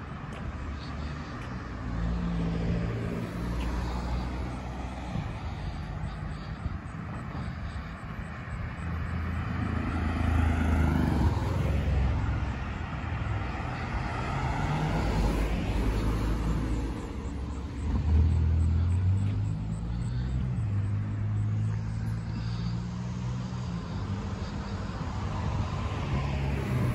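Road traffic: cars passing on a multi-lane road, with a low engine drone and tyre noise that swells as vehicles go by, loudest about ten and eighteen seconds in.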